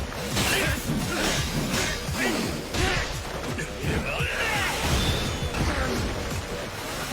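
Animated fight-scene sound effects over music: a dense run of crashing, smashing impacts and whooshes.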